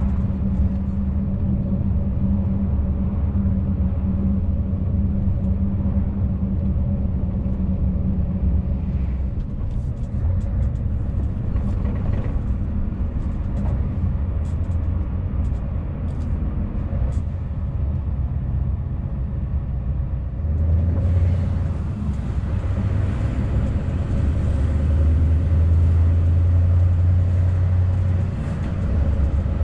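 Scania S650 lorry's V8 diesel engine drones steadily while driving, with road noise. About twenty seconds in, the low drone gets heavier and a higher hiss rises with it.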